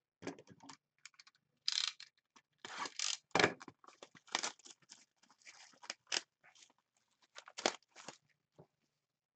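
Plastic wrapping and cardboard packaging of a sealed box of hockey trading cards being torn and crinkled open, in irregular rips and crackles.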